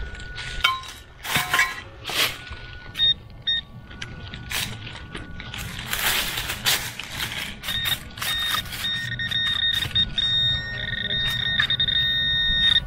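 A digging tool chopping and scraping into leafy soil, then a handheld metal-detecting pinpointer sounding a steady high electronic tone as it is pushed into the hole. The tone sounds in short bits near the middle and holds almost continuously over the last few seconds, which means the pinpointer is right on the buried target.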